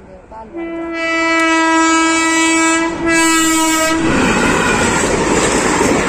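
A loud air horn blasting at one steady pitch for about three and a half seconds, with a brief break near the middle, followed by a loud rushing noise.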